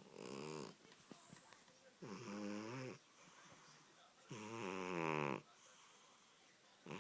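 Domestic cat snoring in its sleep: long pitched snores with a hissy edge, each bending up and down in pitch, repeating about every two and a half seconds.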